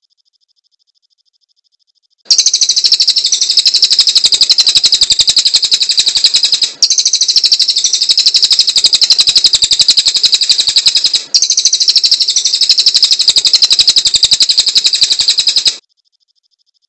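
A cililin singing a fast, shrill trill of rapid, evenly repeated high notes. It starts about two seconds in, runs in three long stretches broken by two brief gaps, and stops shortly before the end.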